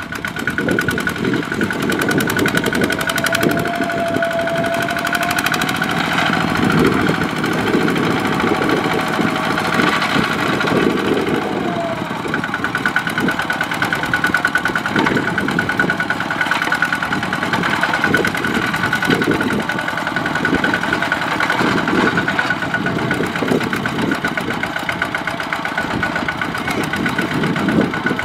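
Single-cylinder diesel engine of a two-wheel walking tractor running steadily under load, a rapid even chugging, as its mud-caked lugged wheels churn through deep mud.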